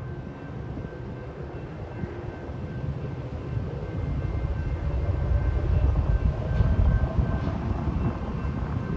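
Metrolink commuter train rumbling past at a grade crossing, the low rumble growing louder over the first six seconds or so and then easing slightly.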